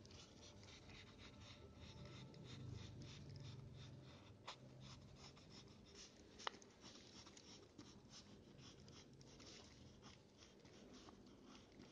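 Faint scratching of a pencil drawing on lined paper: a quick run of short strokes, with two sharp ticks about four and a half and six and a half seconds in.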